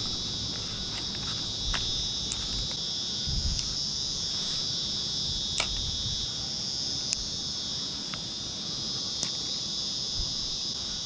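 Steady high-pitched insect chorus, a shrill buzzing in two close bands that holds without a break, with a few sharp clicks over it.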